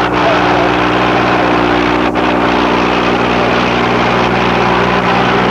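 Massey Ferguson 241 tractor's three-cylinder diesel engine running steadily under heavy load, pulling an 11-tine cultivator through the soil in first gear, high range.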